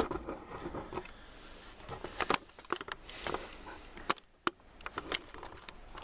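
Handling noise of a handheld phone camera: scattered clicks, taps and rustles as it is moved about.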